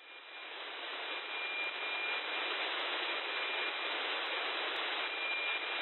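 Software-defined radio's FM-demodulated audio hissing, with a faint, broken high whistle of the NOAA-18 APT weather-satellite signal under the noise. The satellite is setting and its signal is sinking into static. The hiss fades up over the first second.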